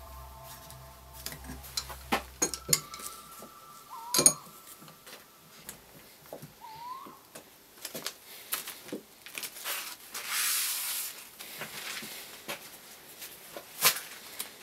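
Steel bar clamps being fitted and tightened on glued-up walnut blocks: scattered metallic clinks and knocks of clamp on clamp and on wood, sharpest about 4 seconds in and again near the end, with a couple of short rising squeaks and a brief hiss about ten seconds in.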